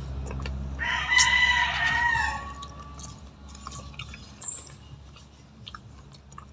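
A rooster crowing once, one long call of about two seconds starting about a second in, then faint scattered clicks.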